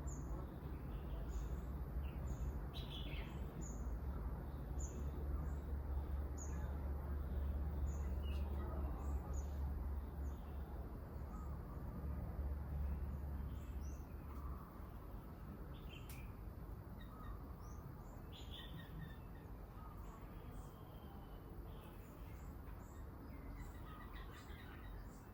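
Small birds chirping, a steady run of short, high notes repeated about once or twice a second, with a few lower calls between them. A low rumble lies under the first half and stops about halfway through.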